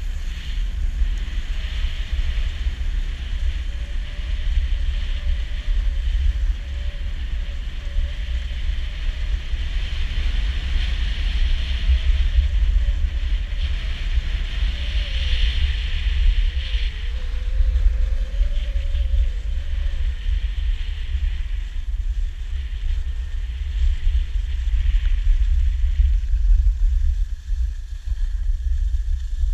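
Wind buffeting the camera microphone in a heavy, steady rumble, over the hiss of skis sliding on a groomed snow track that swells and fades as the skier moves.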